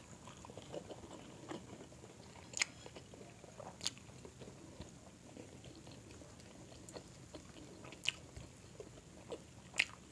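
Close-miked chewing and soft, wet mouth sounds of people eating with their hands, with a few sharp clicks or smacks scattered through.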